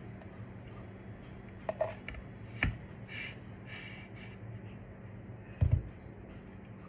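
A metal spoon clicking and scraping against a glass jar and a pot while thick palm sugar syrup is scooped out, with a dull thump just before the end, over a faint steady hum.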